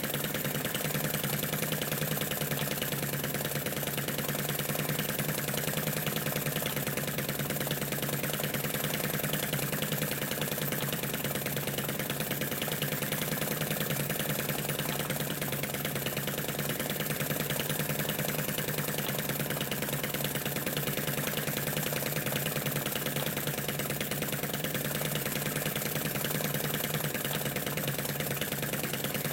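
Model Lanz Bulldog flame-eater engine running steadily at an even speed, driving a model Stuart oil-field pump and a small generator by belt.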